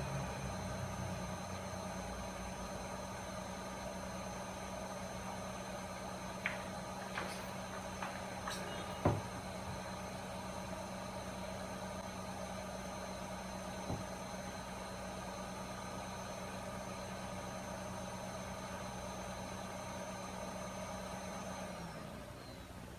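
Hot air rework station blowing steadily, its fan giving a constant hum with a high whine, while solder is melted to form new balls on an IC through a stencil. A few light clicks of small metal tools come about a third of the way in, and near the end the air shuts off, the whine falling away.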